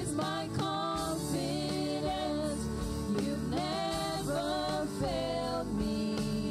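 Live gospel worship music: a singer holding long, gliding notes into a microphone over steady keyboard and band accompaniment.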